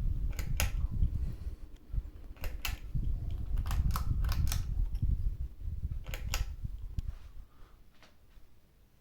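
Ceiling fan pull-chain switch being pulled several times to switch the fan off. Each pull gives a pair of sharp clicks a fraction of a second apart, about five pairs in all. Beneath the clicks is a low rumble of air on the microphone that dies away shortly before the end.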